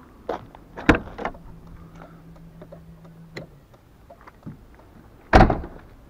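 Car door of a Tofaş Doğan latching open with a sharp click about a second in, then slammed shut with a heavy thump near the end. Small clicks and a faint low hum come in between.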